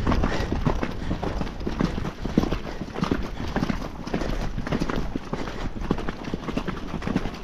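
Hoofbeats of a ridden horse moving on in a steady gait, a run of repeated dull knocks over a low rumble.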